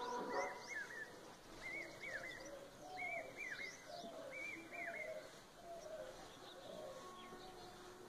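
Birds chirping: short arched chirps repeated every second or so through the first half, with fainter lower calls underneath, at a fairly low level.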